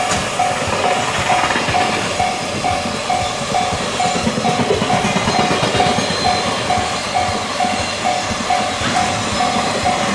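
Container wagons of a freight train rolling past with a steady rumble and wheel clatter. A level-crossing warning bell rings throughout, an electronic ding repeating about twice a second.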